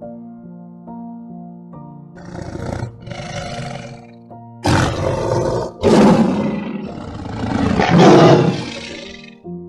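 Lion roaring in a series over background music: two softer calls about two seconds in, then louder, longer roars.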